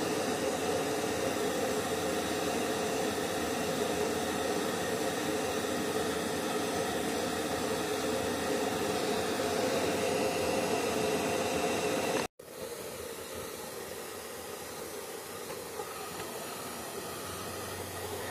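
Handheld hair dryer blowing steadily: a rushing hiss with a steady motor hum. About twelve seconds in the sound cuts out for an instant and comes back quieter.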